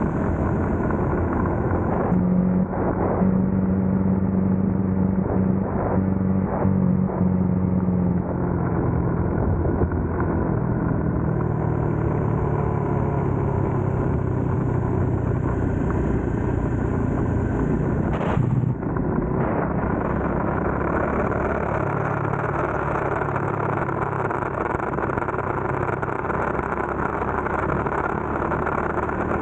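Bajaj Dominar 400's single-cylinder engine running while riding, with wind and road noise. The engine note steps down a couple of times, and there is one short knock about two-thirds of the way through.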